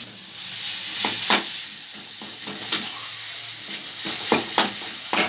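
Food sizzling in hot oil in a pan, with a spatula scraping and knocking against the pan about six times.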